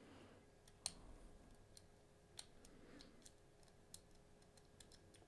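Faint, scattered clicks of a small hook pick and tension tool working the pins inside the keyway of a Bell Armoury 200 padlock during single-pin picking, with a sharper tick about a second in.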